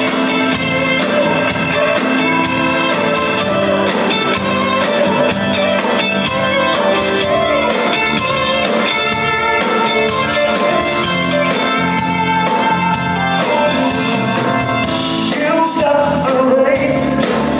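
Live blues-rock band playing a song's instrumental intro: a sustained electric guitar melody over bass and a steady drum beat.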